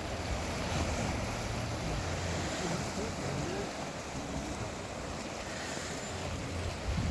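Steady wash of sea waves with wind on the microphone, and a low hum in the first few seconds.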